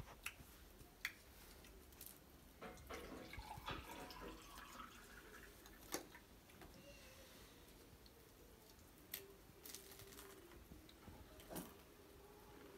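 Faint pouring of a drink from a glass jug into a glass, with a few light clicks scattered through the quiet.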